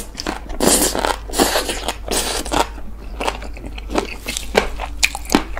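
Close-miked chewing of a mouthful of green onion kimchi (pa-kimchi): an irregular run of short, wet crunching and smacking mouth sounds.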